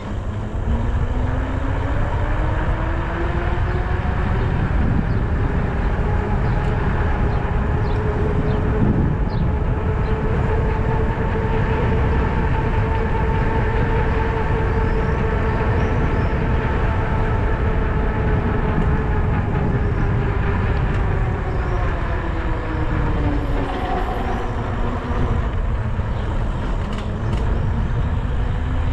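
E-bike motor whining, its pitch climbing as the bike gathers speed, then holding steady. The pitch dips about three-quarters of the way through as the bike slows, and climbs again near the end. Under it runs a steady low rumble of wind on the camera microphone.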